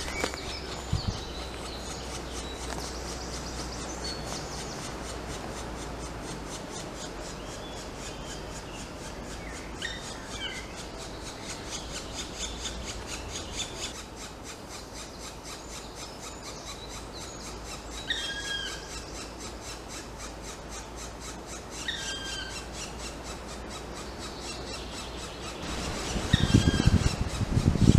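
Black woodpecker nestlings begging inside the nest hole: a continuous rasping, squealing chatter, broken by a few separate short call notes that drop in pitch. Near the end, loud low rumbling noise on the microphone.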